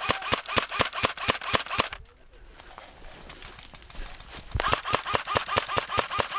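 AK-style airsoft rifle firing fast strings of shots, about seven a second, each shot a sharp crack with a short metallic ping. It stops about two seconds in and starts again a little before the end.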